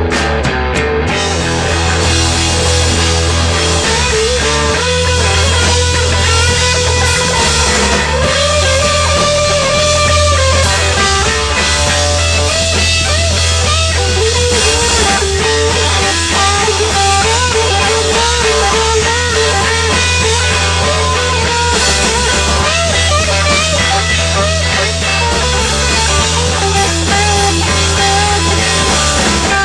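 Rock band playing live: guitar over a steady bass line and drums.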